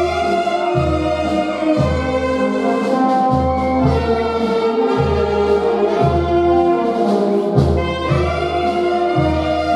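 Brass band playing a slow, solemn tune, with deep bass notes falling about once a second under the trumpets and trombones.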